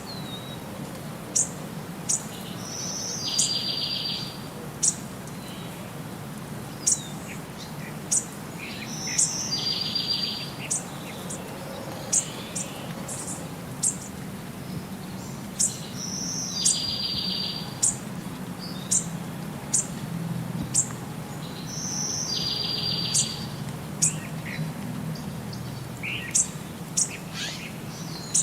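Birds calling: sharp high chirps every second or so, and a repeated song phrase, a short high note followed by a buzzy trill, about every six to seven seconds. A steady low hum runs underneath.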